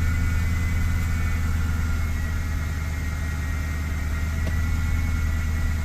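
Dodge Charger engine idling steadily, with a faint steady high whine above the low hum. It is running with the coolant cap off after a radiator hose repair.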